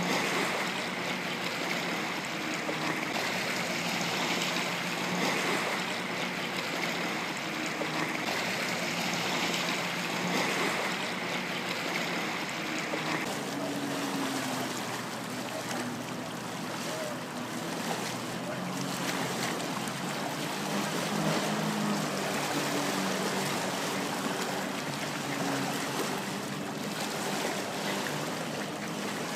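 Jet skis running on the river some way off, their engine note shifting in pitch, over a steady wash of water noise. A thin steady whine sits above it and stops about halfway through.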